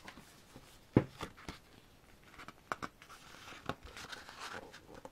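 Paper rustling and light clicks as a K-pop album's photobook is handled and opened. A sharp knock about a second in is the loudest sound.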